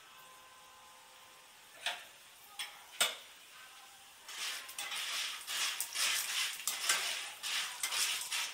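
A few sharp metal clicks against a wok about two to three seconds in, then a metal slotted spatula stirring popcorn kernels in hot oil, the kernels scraping round the pan in repeated strokes, growing louder from about halfway.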